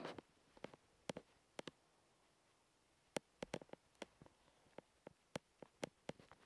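Footsteps on a hardwood floor: sharp, separate clicks, about one or two a second, with a pause of a second or so near the middle.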